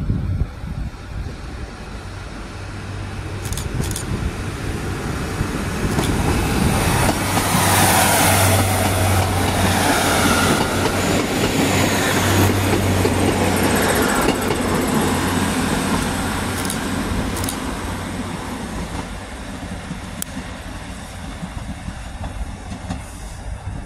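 Two coupled Class 150 Sprinter diesel multiple units (four coaches) passing close along the platform. The diesel engines give a steady low drone and there are a few clicks. The sound builds to a peak midway and fades as the train moves away.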